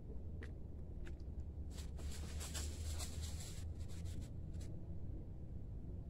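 Intermittent rustling and crackling, as of leaves and undergrowth being brushed or stepped through, over a steady low rumble.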